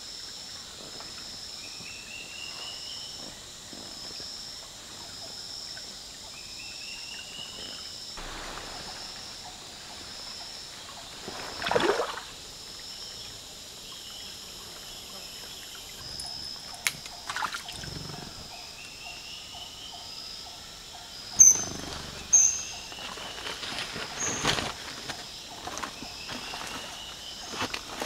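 Tropical forest ambience by a stream: insects keep up a steady pulsing trill, and a short rising call repeats every few seconds. A few splashes and knocks in the water come while a bamboo fish trap is being set, the loudest about twelve seconds in.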